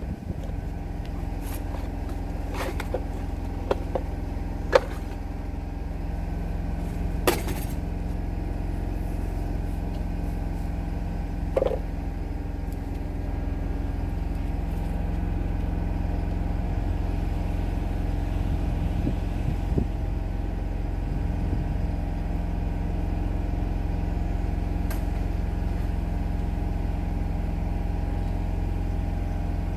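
An engine running steadily at idle, with a handful of sharp knocks in the first twelve seconds.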